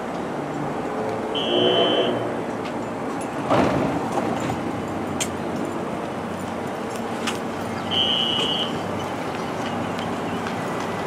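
Steady rumble of a subway terminal station with two short, steady high-pitched electronic beeps about six seconds apart. A sharp bang comes about three and a half seconds in.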